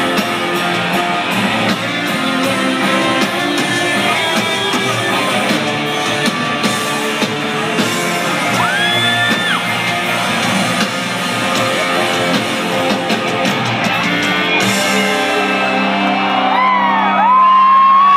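Live country-rock band playing loudly, with electric guitars, drums and vocals. About fifteen seconds in, the drums stop and a chord rings on as the song ends, while fans whoop and yell.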